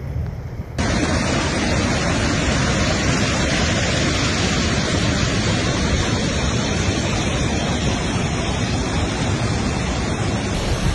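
Loud, steady rushing of water, most likely floodwater, starting abruptly about a second in.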